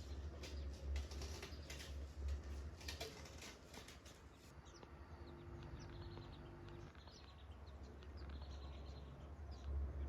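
Faint clicks and rustles during the first few seconds, then small birds chirping in short calls over a low steady hum.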